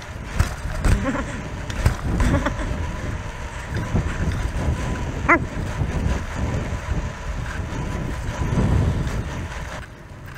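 Wind buffeting a chest-mounted action-camera microphone while a BMX bike rolls over cracked asphalt, with a steady low rumble and a few sharp knocks in the first two seconds. A brief high-pitched squeak comes about five seconds in.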